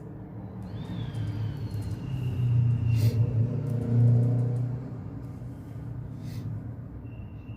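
Low rumble of a passing road vehicle, swelling to a peak midway and then fading, with a faint high whine and a couple of light taps over it.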